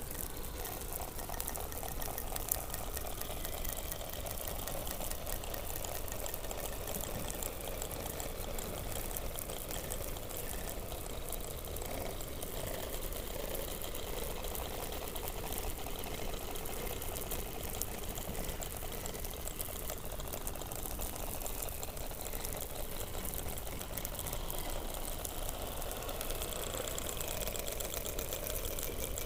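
Underwater ambient sound beneath Antarctic ice, picked up by a hydrophone: a continuous dense crackle and hiss, with faint wavering high tones now and then.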